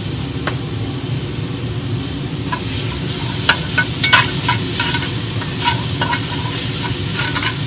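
Onions, garlic and tomato paste sizzling in a hot cast iron Dutch oven, with a spatula scraping against the bottom and sides of the pot as it is stirred. The sizzle grows and the scrapes come more often from about two and a half seconds in.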